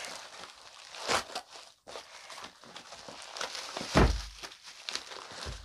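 Bubble wrap and cardboard crinkling and rustling as a bubble-wrapped box of books is handled and lifted out of a cardboard shipping carton, with a dull thump about four seconds in.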